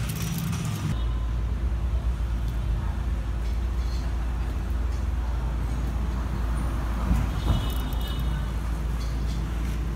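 Road traffic: a steady low engine rumble sets in about a second in and holds throughout.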